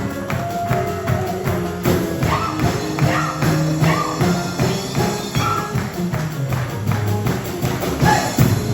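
Music with a steady beat and a pitched melody.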